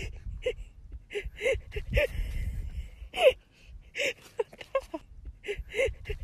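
A puppy whimpering: a string of short, high whines about two a second, with one longer falling whine about three seconds in.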